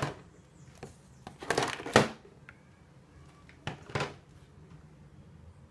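Makeup items knocking and rattling against each other and the plastic drawer dividers as they are handled in a vanity drawer: a few short clatters, the loudest about one and a half to two seconds in and another about four seconds in.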